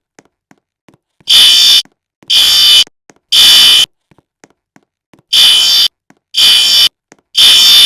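Fire alarm sounding the temporal-three evacuation pattern: three loud, shrill blasts of about half a second each, one second apart, then a pause and three more.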